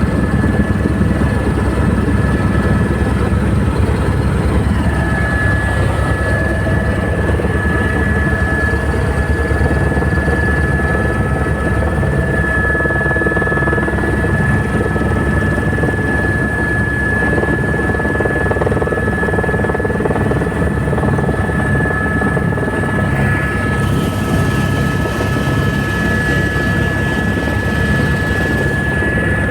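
Helicopter running steadily: a rapid, even rotor beat under a constant high-pitched turbine whine.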